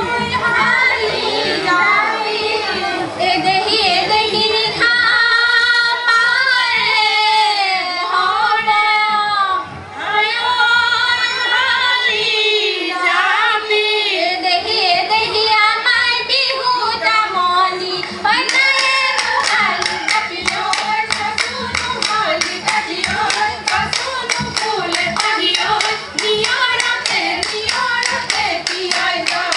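Group of women singing a Bihu folk song over live music. From about two-thirds of the way through, fast, evenly paced hand-clapping joins in.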